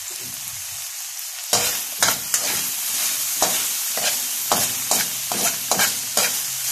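Diced pork sizzling in a metal wok. From about a second and a half in, a metal ladle scrapes and knocks against the pan as the meat is stirred.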